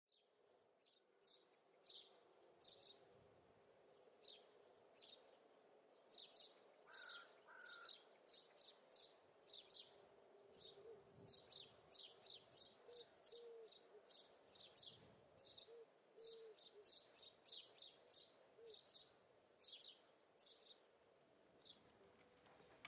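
Faint chirping of small birds: short high chirps repeated throughout, several a second.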